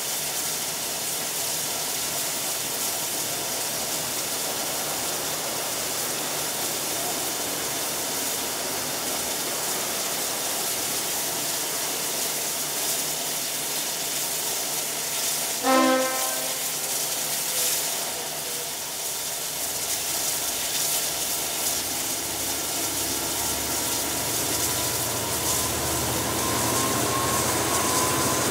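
Steady hiss of steam from a standing oil-fired J class steam locomotive, broken about halfway by one short, loud whistle toot. In the last third a V/Line N class diesel locomotive's engine comes in, a low rumble with a slowly rising whine that grows louder as it draws near.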